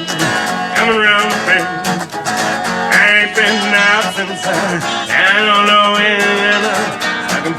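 Live acoustic guitar strumming in a country-style song, with a wavering sung or played melody coming in three times over the chords.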